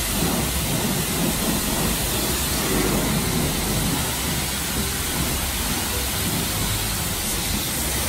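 Self-serve car wash pressure wand spraying water onto a car: a steady hiss of high-pressure spray.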